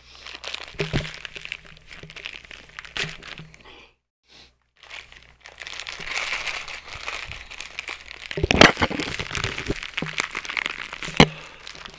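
Plastic poly mailer bag crinkling and crackling as it is squeezed and worked against a face to tear it open. There is a brief pause about four seconds in, then more crinkling, with loud sharp cracks about eight and a half seconds in and again near the end.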